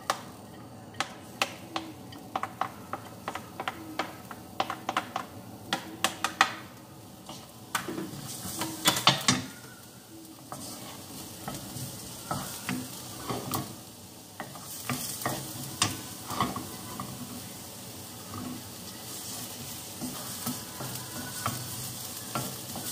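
Chopped onion and minced garlic frying in olive oil in a nonstick wok, stirred with a wooden spoon. Many sharp taps and scrapes of the spoon come through the first half, then a steady sizzle that grows louder toward the end.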